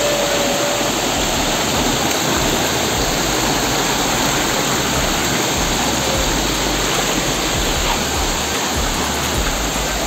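Steady rushing of a waterfall and the rocky stream below it, water cascading over boulders.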